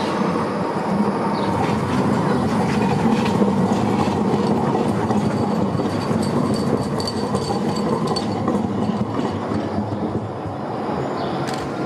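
A modern low-floor articulated tram passing close by as it pulls away, its wheels rumbling and clattering on the rails, with a faint high tone partway through.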